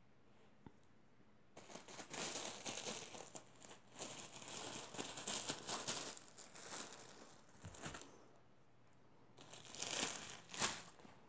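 Thin plastic bag around a ring-shaped pastry crinkling and rustling as a cat bites and drags it. The crinkling comes in bouts, starting about one and a half seconds in and going on to about eight seconds, then two more short bouts near the end.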